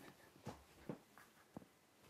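Near silence with a few faint, short knocks, as of a person moving about and handling gear.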